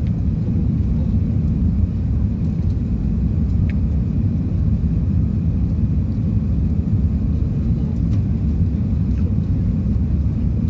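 Airbus A380-800 cabin noise in the climb just after take-off: a steady, deep roar of the jet engines and airflow, heard inside the cabin at a window seat.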